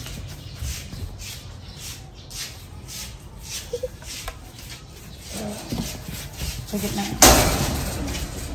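Light clicks and taps, several a second, from a baby monkey being spoon-fed yogurt out of a metal bowl, with a few faint squeaky sounds. A loud rushing noise comes in about seven seconds in.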